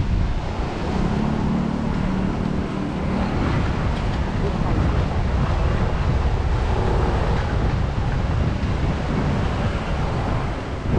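Wind buffeting the microphone over the steady wash of surf on a beach. A low steady hum comes in for a couple of seconds near the start, and faint voices are heard in the background.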